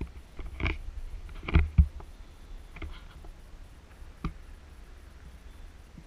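Wind on the microphone of a handheld camera, with scattered knocks and scuffs as the camera is moved. The loudest pair of knocks comes about a second and a half in, and another follows near the four-second mark.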